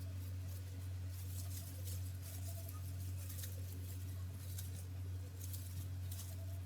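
Soft, irregular scratching and rustling of hair dye being worked through hair, over a steady low hum.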